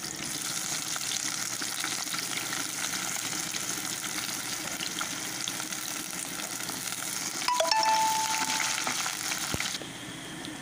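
Sliced onions sizzling as they fry in hot oil in a kadai. About seven and a half seconds in, the sizzle swells louder and a short ringing tone sounds. Near the end the sizzle drops suddenly quieter.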